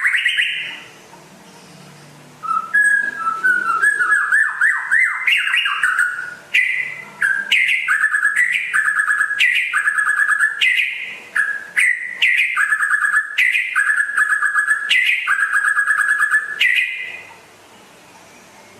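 White-rumped shama (murai batu) singing. A short rising note comes first, then after a pause a long phrase: a quick run of rising notes, then clear high notes alternating over and over with lower buzzy trills. The song stops a little before the end.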